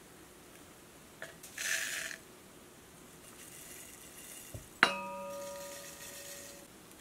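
Seasoning shaken from a shaker into glass mason jars with short bursts of hiss. Just before five seconds in, a glass jar gets a sharp clink and rings with a clear tone that fades over about two seconds.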